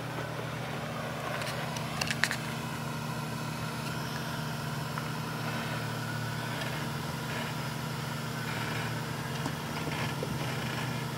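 Jeep Grand Cherokee engine running at a low, steady idle as it crawls down a rocky ledge, with a few sharp clicks about two seconds in.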